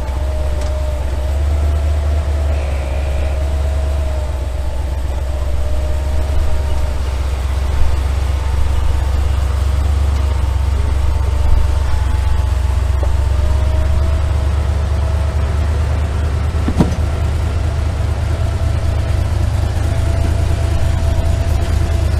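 Engine of a short-wheelbase 4x4 running at low revs as it crawls down a rock ledge: a steady low drone with a faint wavering whine above it. One sharp knock about seventeen seconds in.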